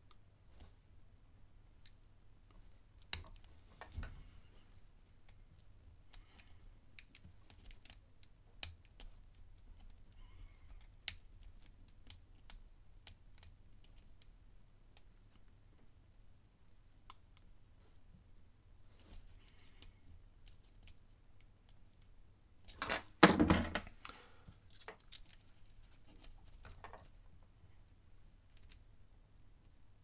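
Steel lock picks scraping and clicking inside a small brass pin-tumbler padlock's keyway, with faint scattered ticks as the pins are worked under tension. About three-quarters of the way through comes a louder metallic clatter lasting about a second.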